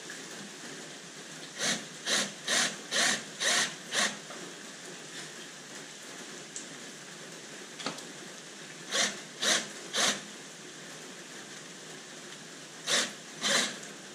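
Aerosol penetrating oil (PB Blaster) sprayed in short hissing squirts: six about two a second, then three, then two more near the end.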